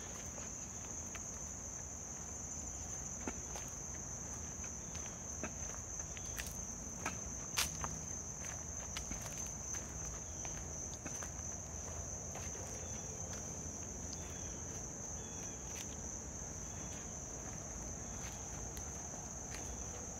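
Steady high-pitched chorus of insects in late-summer woods, with scattered footsteps crunching on dry leaves and twigs.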